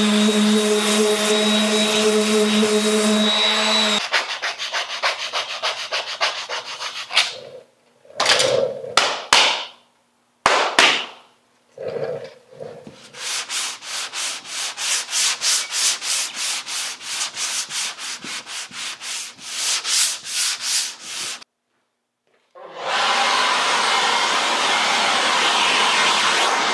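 Sandpaper rubbing on cured body filler on a car bumper. Quick back-and-forth strokes, about four a second, broken by short pauses and a moment of silence, with a steady whirring noise at the start and again near the end.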